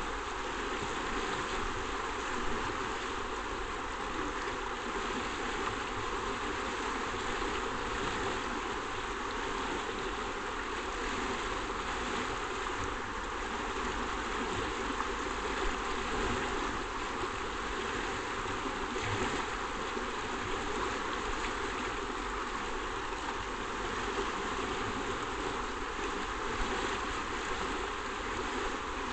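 Shallow river rushing over stones in riffles: a steady, unbroken rush of flowing water.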